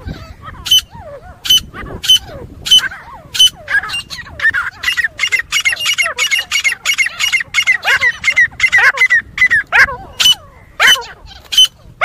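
Grey francolin (teetar) fighting call: loud, sharp, repeated calls. They come faster and crowd together from about four seconds in, then thin out again near the end. This challenge call is used to lure birds in for hunting.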